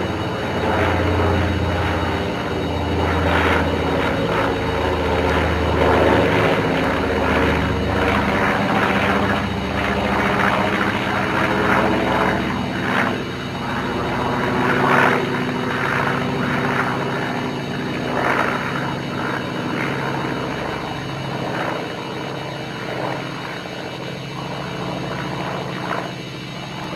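A North American B-25 Mitchell bomber's twin radial engines droning as it flies overhead, with a slow pulsing beat between the two engines in the first several seconds. The drone gradually fades as the plane flies away.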